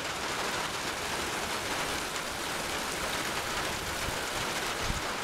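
Steady rain falling on a wet, puddled paved street.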